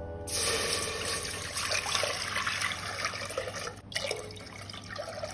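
Water pouring in a steady stream into an empty stainless steel pot, splashing on the metal. It starts about a third of a second in, breaks off briefly near four seconds, then goes on more softly.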